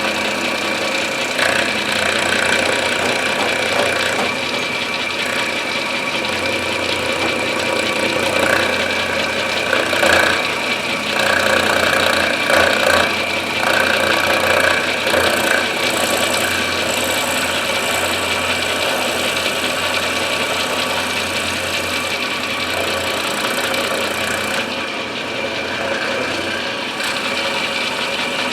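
Milling machine running steadily with its constant spindle whine, milling the inletting in an English walnut gunstock; the sound grows louder and rougher in uneven stretches about a third of the way through as the cutter bites into the wood.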